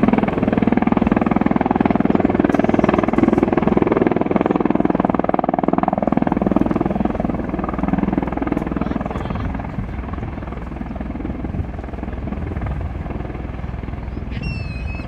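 Bell Boeing V-22 Osprey tiltrotor with its rotors and engines running, a steady pulsing rotor drone that grows a little quieter about ten seconds in. A brief high chirp sounds near the end.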